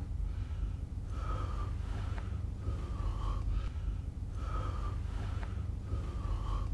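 A man's heavy, ragged breathing, in and out, about one breath every second and a half. It is the panting of someone catching his breath after shouting, over a low steady room rumble.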